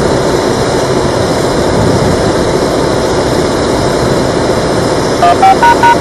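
A loud, steady rushing noise with no clear pitch. About five seconds in, it is joined by a quick run of short, loud beeps at stepping pitches: the encoded activation tones that trigger the EOWS 612 outdoor warning siren.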